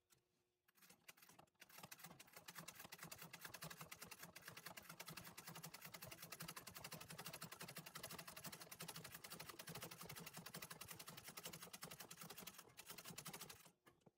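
Antique treadle sewing machine stitching free-motion embroidery, its needle going up and down in fast, even strokes as it fills in a petal. The faint stitching starts about a second and a half in and stops just before the end.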